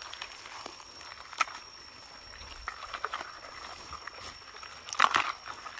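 Scattered crunches and rustles of dry leaf litter and twigs being stepped on or disturbed, with a sharp snap about a second and a half in and a cluster of louder crunches near the end.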